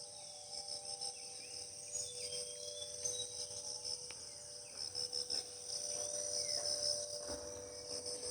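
Steady high-pitched insect chorus of crickets with rapid pulsing trills, under a few faint short bird chirps.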